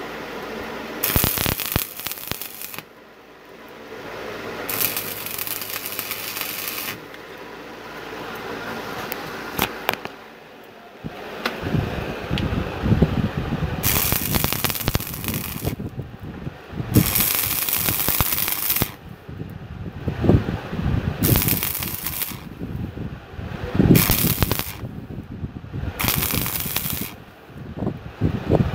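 Stick (arc) welding on steel: the electrode arc crackles and sizzles in a series of short runs of one to three seconds each, with brief pauses between them as the welds are laid.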